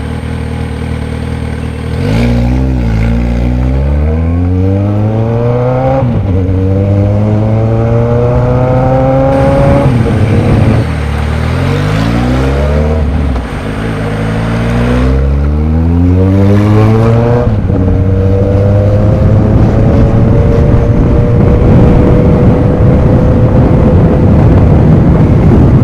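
Motorcycle engine, heard from the bike being ridden: it runs steadily for about two seconds, then accelerates hard with the pitch rising through the gears, dropping at four upshifts, and holds a steady high pitch for the last several seconds with rising wind rush.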